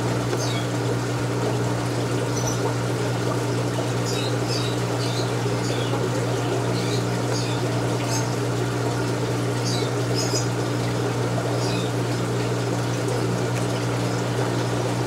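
Steady hum of aquarium pumps and filters with water running and trickling, and faint brief high chirps scattered through.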